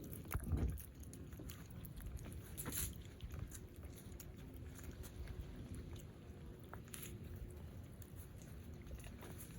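Person eating: chewing with scattered small clicks, and a louder knock about half a second in.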